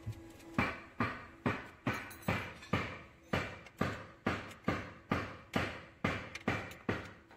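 Ratchet wrench worked in steady strokes, a little more than two a second, as a nut on the steering column is tightened; each stroke starts sharply and fades out.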